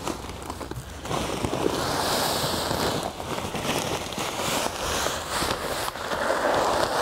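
Humichar pellets pouring from a bag into the plastic hopper of a 3-point electric broadcast spreader: a steady rushing hiss of granules, starting about a second in, with a few crackles from the bag.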